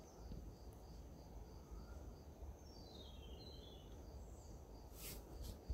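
Faint outdoor ambience of birds and insects: a high chirp repeating evenly about three times a second, with a quick descending run of high notes about three seconds in, over a low rumble.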